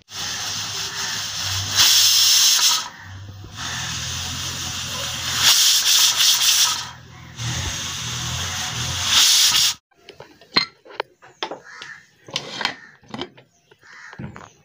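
Aluminium pressure cooker whistling: steam hisses loudly out under the weight valve, surging three times, the three whistles that mean the rice, dal and vegetables are cooked. It cuts off suddenly about ten seconds in, and a few light clicks and knocks follow.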